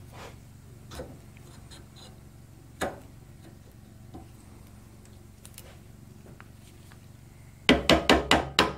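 A mallet tapping the Nissan TD42 alternator's drive-end housing down onto the stator and rotor shaft: a quick run of about seven sharp knocks near the end, preceded by a couple of faint clicks about one and three seconds in.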